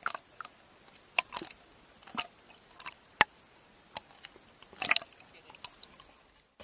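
Irregular small clicks and pops of water against an underwater camera housing, heard from just below the surface with little else behind them.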